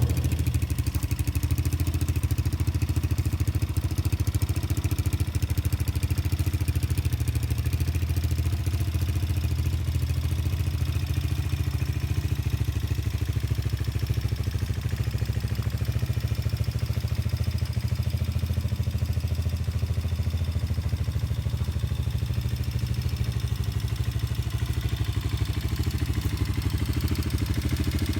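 Rusi KRZ 200 dirt bike's single-cylinder engine idling steadily, the beat even with no revving.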